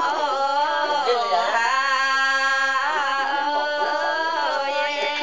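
Women singing a highland ethnic folk song, holding long notes with bends and turns in the melody.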